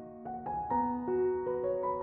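Background music: a soft piano melody, one note after another at an easy pace.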